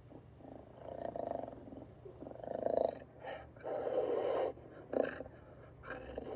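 Jaguar growling in a string of short, rough grunts and growls, each a fraction of a second to nearly a second long, separated by brief pauses.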